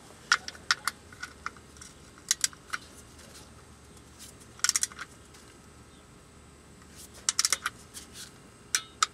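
Ratcheting torque wrench tightening an oil drain plug toward its 30 foot-pound setting: sharp ratchet clicks coming in short irregular groups as the handle is swung in strokes.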